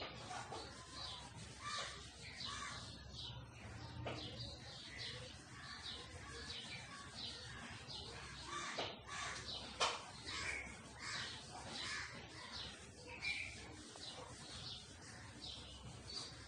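Birds calling again and again, two or three short calls a second, with crows cawing among them. A few light clicks as the spoon touches the miniature pitha pan, the sharpest about ten seconds in.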